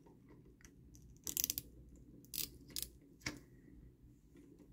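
Hard plastic parts of a Transformers action figure clicking and snapping as they are handled and fitted together. The clicks are faint and sharp: a quick run of them about a second in, then single clicks a few times after.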